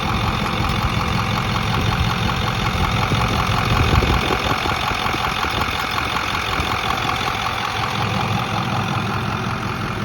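Ford F-250 engine idling steadily with a rapid clicking that sounds like two spoons clicking together. The cause is unknown to the owner, and the truck otherwise runs fine.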